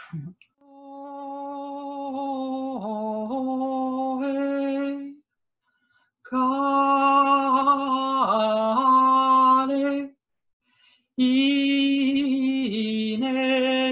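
A woman singing wordless, improvised intuitive song: three long held phrases on one steady note, each dipping briefly to a lower note and back, with short pauses between them.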